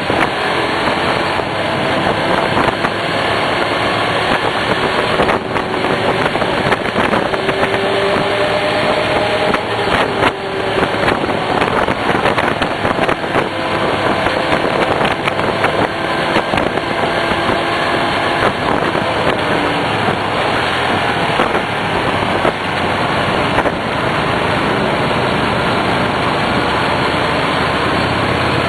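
Hyosung GT250R motorcycle's V-twin engine running steadily under a constant rush of noise, its pitch drifting up and down a little now and then.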